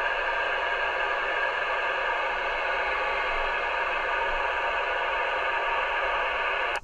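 Steady FM receiver static hissing from the Icom IC-2730A mobile radio's speaker: open-squelch noise with no readable station in it. It cuts off abruptly with a short click near the end as the squelch closes.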